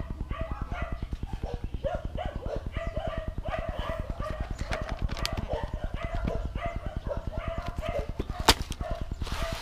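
Repeated short, wavering animal cries over a rapid, even low pulsing, with one sharp click about eight and a half seconds in.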